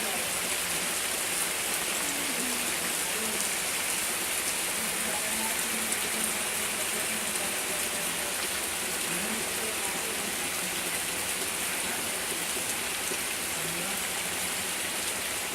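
Steady heavy rain falling, an even hiss that doesn't let up.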